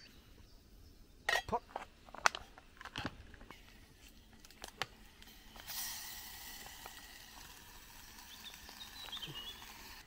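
A few light clinks and knocks of a small metal camping pot and its lid. From about halfway a steady soft hiss as the contents of a foil meal pouch are tipped into the pot.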